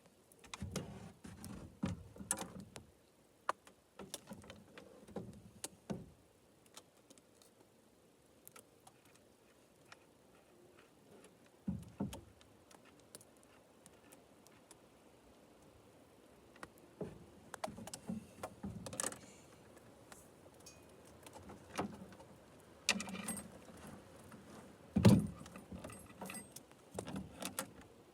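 Loose Oregon saw chain clinking and rattling as it is handled, in scattered short bursts with quiet gaps, and a louder knock near the end.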